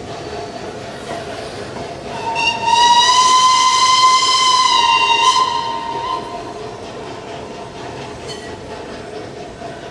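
Narrow-gauge steam locomotive's whistle sounding one long blast of about three seconds, starting about two seconds in, its note dipping slightly just before it stops. Underneath is the steady running of the train's passenger carriages rolling past.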